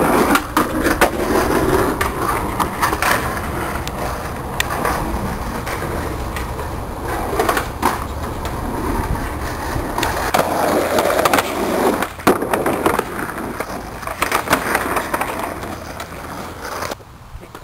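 Skateboard wheels rolling on asphalt, with scattered sharp clacks of the board hitting the ground as tricks are tried.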